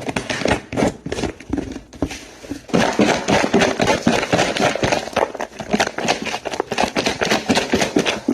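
Sliced cucumber and dressing being shaken hard in a lidded container: a fast, steady rattling and knocking of cucumber pieces against the container walls.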